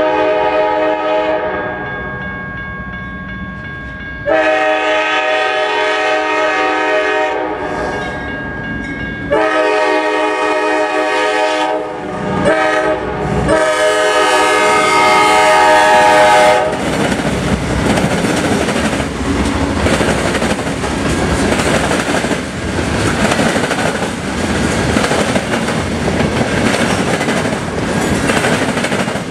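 A CSX freight locomotive blows its air horn for the grade crossing in a series of long blasts broken by a short one. About halfway through, the horn stops and the train rolls past the crossing with a steady rumble and the clatter of wheels over the rails.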